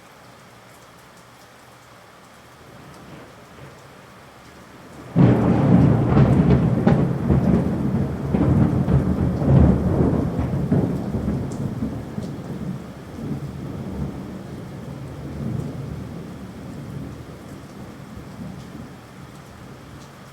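Steady rain, then about five seconds in a sudden loud clap of thunder whose low rumble fades slowly over the next ten seconds while the rain goes on.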